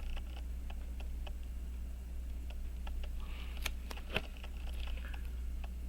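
Faint, irregular light clicks and taps of small metal tools handling an Elgin pocket watch movement while its pivots are oiled, with two sharper clicks about two thirds of the way in, over a steady low hum.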